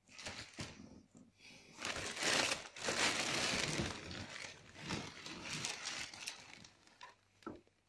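Clear plastic packaging bags crinkling and rustling as they are handled inside a cardboard box, loudest from about two seconds in and fading near the end with a couple of small clicks.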